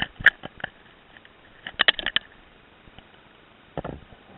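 Two quick runs of short sharp clicks and crackles, then a single dull thump near the end.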